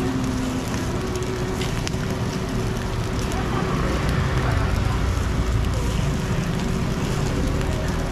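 Quail eggs and whitebait sizzling in a hot cast-iron griddle, with a steady low rumble and hum underneath that swells about halfway through.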